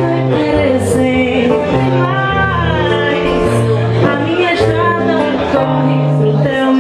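A woman singing with acoustic guitar accompaniment: a sustained, gliding vocal line over steady plucked bass notes.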